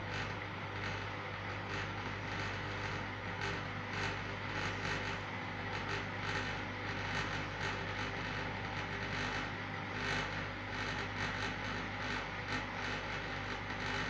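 Indesit front-loading washing machine running a wash cycle, its drum turning the laundry: a steady low hum with irregular clicks and soft knocks throughout.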